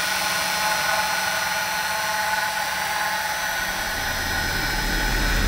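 Small FPV freestyle quadcopter's brushless motors spinning at idle on the ground, armed before takeoff: a steady whine made of several fixed tones. A low rumble builds beneath it near the end.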